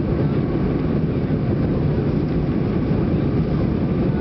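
Steady low rumble of a jet airliner's engines and rushing airflow, heard inside the passenger cabin during the climb after takeoff.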